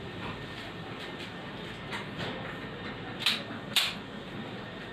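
Handling noise: a run of small clicks and knocks, with two sharper clicks about half a second apart a little past the middle.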